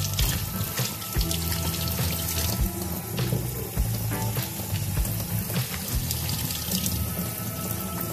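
Kitchen faucet running a steady stream into the sink, with carrots rinsed under it at first. Background music with a regular beat plays over it.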